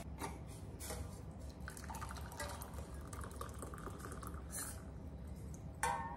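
Hot tea trickling from a steel saucepan through a small mesh strainer into ceramic mugs. A single sharp clink comes near the end.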